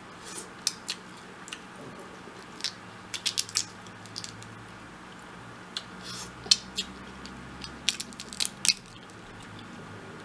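Close-miked eating of Dungeness crab: irregular sharp clicks and cracks of shell breaking and wet mouth sounds while chewing.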